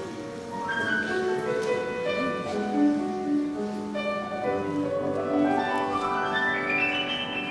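Solo piano playing the introduction to a song, with a long rising run of notes in the second half.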